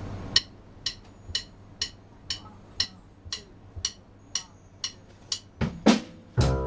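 Sharp percussive clicks at a steady tempo, about two a second, setting the count before the band's number. Near the end a few heavier drum hits lead into the band coming in with bass and guitar.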